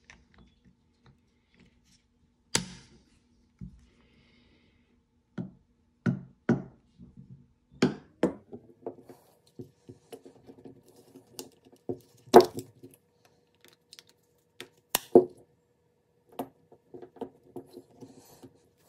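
Metal-on-metal knocks and clicks of locking pliers and a Yamaha Moto-4 350 carburetor body being handled and worked to loosen a brass fitting. The sharp strikes are scattered, the loudest about twelve and fifteen seconds in.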